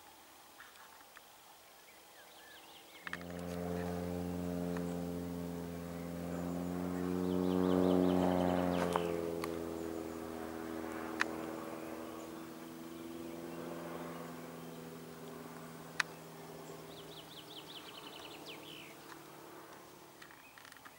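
An engine passing by. It comes in suddenly, grows louder, then drops in pitch and fades away slowly. Birds chirp in the background.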